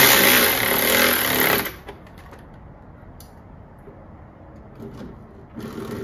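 Cordless electric ratchet running for about two seconds as it snugs up a dirt bike's rear axle nut, then stopping; a few faint clicks follow.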